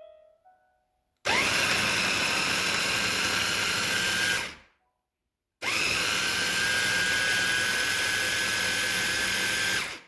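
Small electric food chopper running in two bursts of about three and four seconds, grinding chickpeas, tahini and garlic into a paste. Each time its motor whines up to speed, runs steadily, then winds down.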